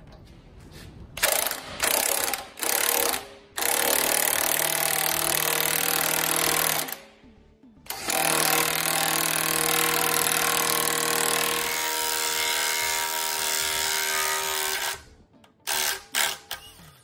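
Impact wrench hammering on the crankshaft bolt, drawing the harmonic balancer onto the crank snout of a Chrysler 265 Hemi six. Three short bursts, then two long runs of several seconds each with a short pause between.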